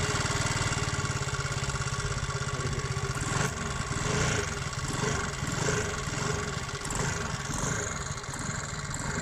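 Vespa VXL 125's single-cylinder four-stroke air-cooled 125 cc engine running at idle on the stand, just after starting. From about three seconds in, the throttle is blipped several times, so the engine pitch rises and falls.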